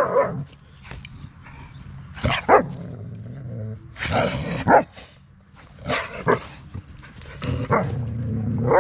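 A pack of wolfdogs and shepherd dogs barking and growling in several short outbursts while feeding on raw meat, the sound of dogs squabbling over food.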